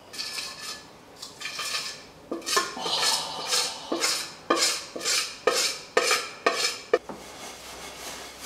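A metal spoon stirring and scraping against the side of a dish in quick, regular strokes, about two a second, loudest through the middle and easing off near the end.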